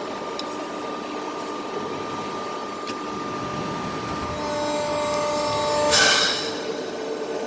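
300-ton CNC hydraulic press brake running: a steady hum with faint steady whines, joined by a louder, higher whine about four and a half seconds in, then a short loud hiss about six seconds in.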